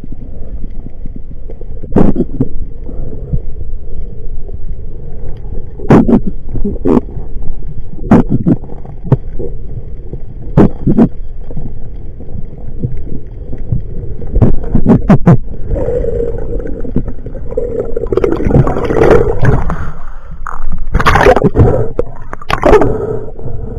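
Muffled underwater noise picked up by a camera mounted on a speargun: a steady low rumble of water moving past, broken by scattered sharp knocks and clicks from the gun and the camera housing. A wavering hum joins in for a few seconds near the end.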